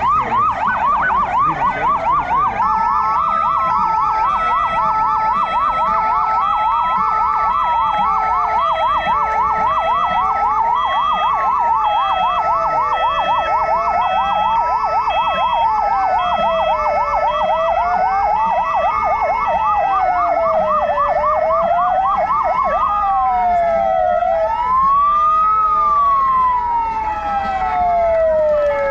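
Several emergency-vehicle sirens sounding together: a fast warbling yelp, a slow rising-and-falling wail, a steady tone and a pulsing tone. The yelp stops about 23 seconds in, and one wail rises once more and then falls away near the end.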